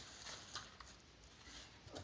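Faint handling noise: light scrapes and a few soft taps as a small homemade steam engine model on its base is turned around on a workbench.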